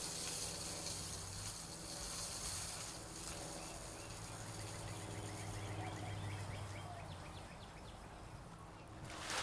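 Outdoor ambience: a steady low hum under a rustling hiss for the first few seconds. Then a quick run of short, high chirps repeats several times a second until near the end.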